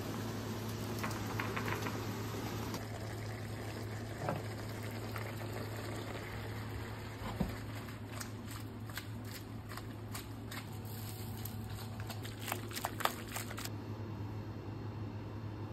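Kitchen cooking sounds: boiling water as paccheri are lifted out of a saucepan with a wire spider, then a run of sharp metallic clicks and scrapes from about eight seconds in, as a sauté pan of pasta is tossed and worked with metal tongs. A steady low hum runs underneath.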